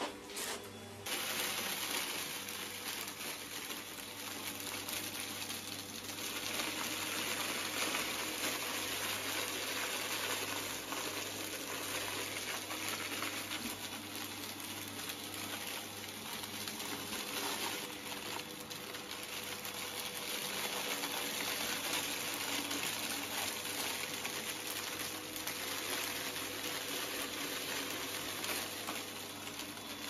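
Hoover Breeze Evo upright vacuum cleaner running steadily as it sucks up scattered potting soil from a rug, with a crackle of grit going up the nozzle. The sound briefly cuts just after the start.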